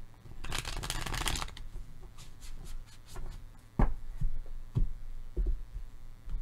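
Tarot deck being shuffled by hand: a dense flutter of cards about half a second in, lasting about a second, then scattered card clicks and a few separate thuds as the deck is knocked square and set down on the cloth reading mat.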